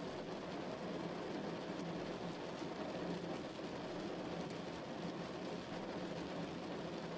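Steady rain: an even hiss with a faint patter of drops, unchanging throughout.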